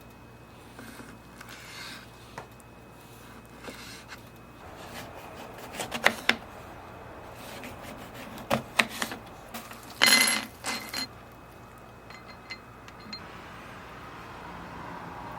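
Dishes and utensils being handled, with scattered knocks and clicks. A louder ringing clink comes about ten seconds in.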